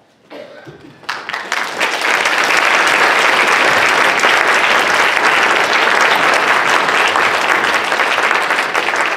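Audience applause breaking out about a second in and quickly swelling to a loud, steady clatter of many hands clapping.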